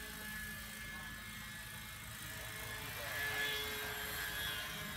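Radio-controlled scale model Schweizer 300C helicopter by Vario flying overhead: a steady rotor and engine drone with a thin high whine, swelling slightly about three seconds in.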